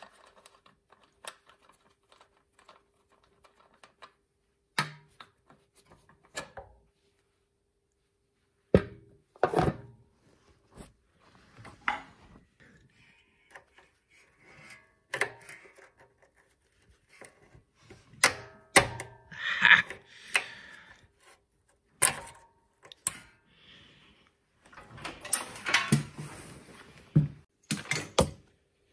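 Scattered clicks, knocks and light rattles of hand work with a throttle cable and tools on a small tracked dumper. They are sparse at first, become more frequent from about nine seconds in, and there are a few seconds of rustling near the end.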